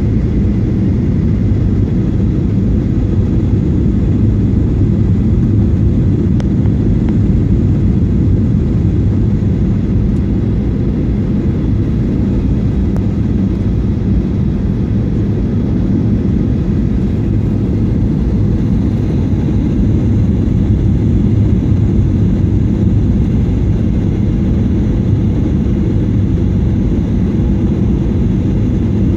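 Steady low rumble of engine and airflow noise inside a jet airliner's cabin during the descent on approach to landing.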